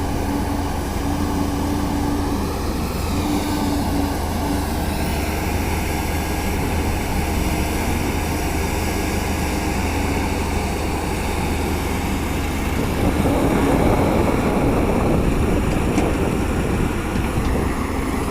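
Caterpillar 320D hydraulic excavator's diesel engine running steadily under working load. It gets louder and rougher for a few seconds about two-thirds of the way through.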